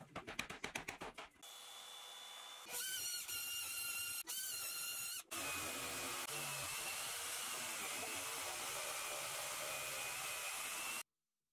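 Rapid light hammer taps, about eight a second, driving a thin blade between stacked plywood pieces. About a second and a half in, an electric jigsaw starts, quieter at first, then cuts plywood steadily with a whine, pausing twice briefly and cutting off just before the end.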